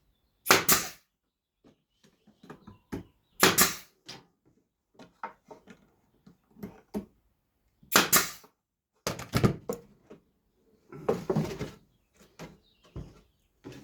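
Sharp knocks and clacks as small wooden pieces are fastened together, about half a dozen loud strikes a few seconds apart, some in quick pairs. A scraping rustle of wood being handled runs for about a second near the end.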